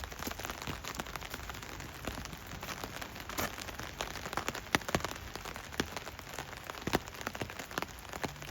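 Rain falling on an umbrella: a steady hiss with many sharp, irregular drop taps.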